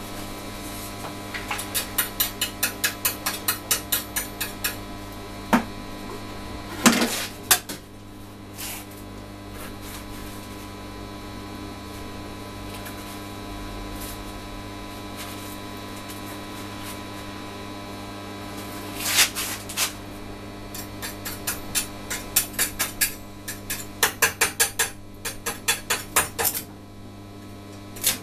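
Light metallic taps and clinks of steel on a steel plate, in quick runs of about three or four a second with a few heavier knocks, over a steady electrical hum.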